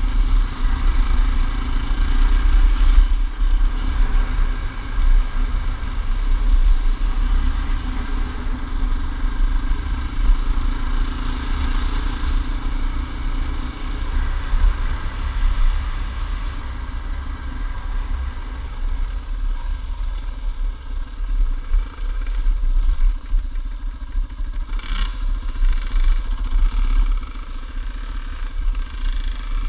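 Yamaha dirt bike engine running steadily while riding over a gravel track, with heavy wind rumble on the bike-mounted microphone. A few sharp clicks near the end.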